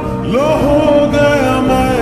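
Background music from a Hindi romantic song: the melody glides up into a long held note about a third of a second in, then steps down, over a sustained accompaniment.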